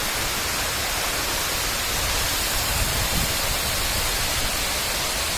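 Stream water rushing and splashing over rocks in a steady, loud hiss with no let-up.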